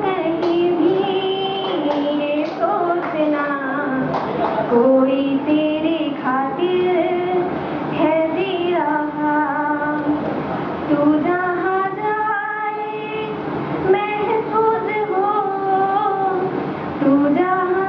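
A woman singing a Hindi song, holding long notes and sliding between pitches.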